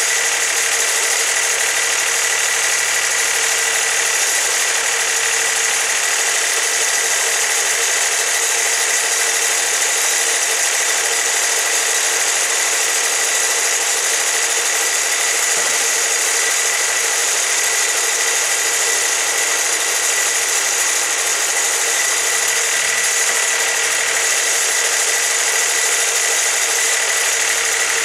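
Wood-Mizer LT40 portable band sawmill running at an even, unchanging pitch, with a steady high whine over the engine note.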